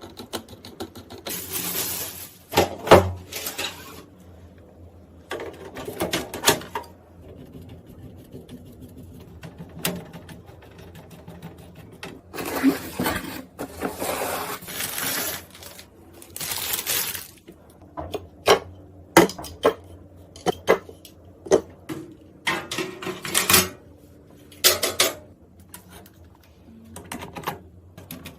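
Computer parts being handled and fitted together during a PC build: sharp clicks and taps, with several longer bursts of scraping or rasping a second to a few seconds long.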